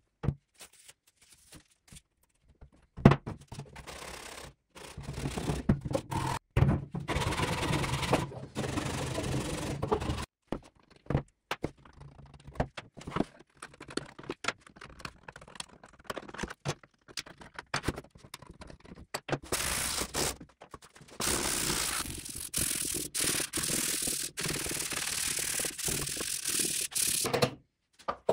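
Hand-tool work on wooden drawer parts: scattered knocks and thunks, with two long stretches of steady scraping, and a hammer tap near the end.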